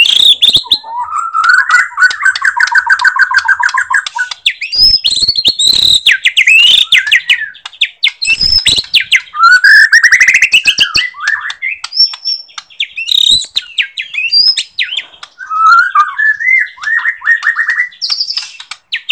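Murai batu Borneo (white-rumped shama) singing loudly. It runs through a fast, varied song of clear whistles, rapid trills and harsh chattering notes.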